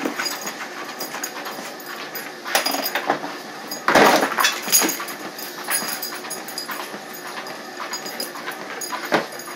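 A German Shepherd scrambling onto a running treadmill, with scattered knocks and a loud thump about four seconds in over the treadmill's steady noise.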